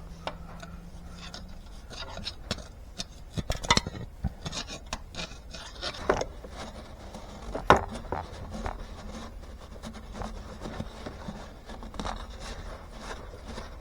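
Scraping and rubbing from hand work at an engine block's freeze plug hole, broken by a few sharp clicks and knocks.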